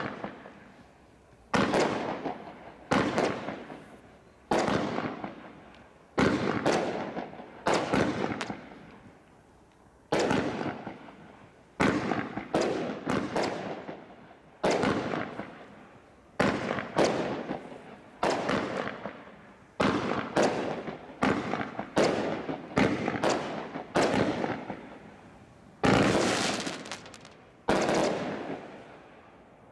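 Consumer firework barrage from the Bright Star Desert Storm crate pack firing shot after shot. About twenty sharp bangs come one every second or two, each trailing off over about a second.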